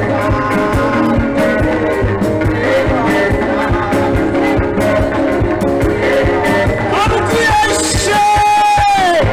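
Live church worship music: a singer's voice over a band with a steady beat. Near the end one long note is held and then drops in pitch.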